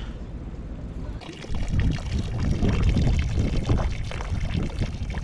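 A person urinating off the side of the boat into the lake: a stream pouring onto the water's surface, starting about a second in and carrying on.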